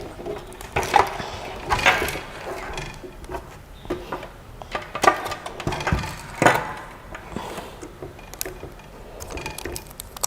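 Irregular knocks, clunks and rustles of machine parts and packaging being handled, a sharp knock roughly every second.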